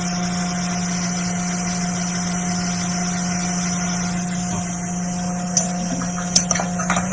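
Hot air rework station blowing steadily, a hiss of air over a constant fan hum, while it heats the solder on a chip being reballed. A few light clicks near the end.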